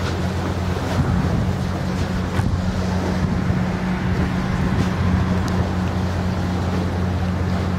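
Steady low machinery hum from moored motor yachts, holding one even pitch throughout, over a constant rushing noise.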